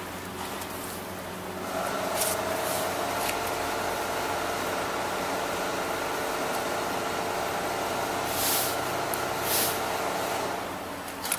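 Steady machine hum made of several tones, starting about two seconds in and stopping shortly before the end. Over it come short hisses of compressed air, four times, the loudest two near the end.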